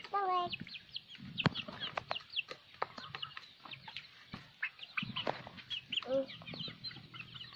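A flock of chickens, Bangkok game-fowl among them, clucking and calling while feeding, with many short high chirps and a lower call about six seconds in.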